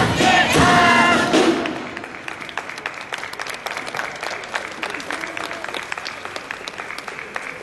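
Wind band and shouted cheering end together about a second and a half in, followed by applause from the audience.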